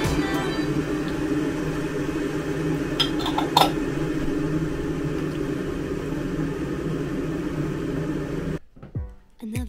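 A steady mechanical hum, like a small household appliance running, with two light clicks about three seconds in as a jam jar is closed and set down on the wooden table. The hum cuts off suddenly near the end.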